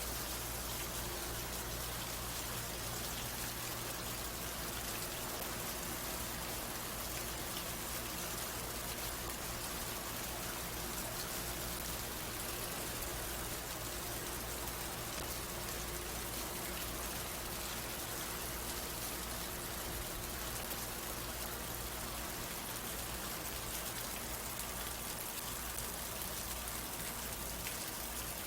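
Steady rain falling, an even hiss of many drops pattering on a surface, with a faint low hum beneath.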